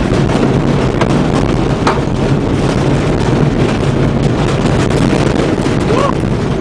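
Old Ford Escort van driven fast over a rough dirt track: a loud, steady rumble of engine and tyres with the body rattling, and a couple of sharp knocks in the first two seconds as it jolts. Very noisy.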